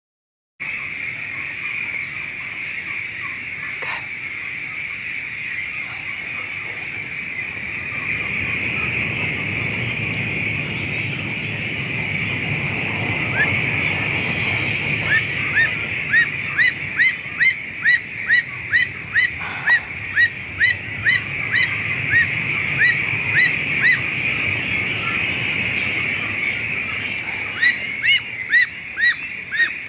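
Young Pekin duck giving short rising peeps, about two a second, from about halfway in, pausing briefly and starting again near the end: distress calls from a duck caught in wire mesh flooring. Under them is a steady high-pitched din of many ducks calling.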